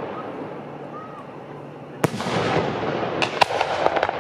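Fireworks display: the rumble of earlier bursts dies down, then a sharp bang about two seconds in is followed by crackling and a quick run of sharp cracks.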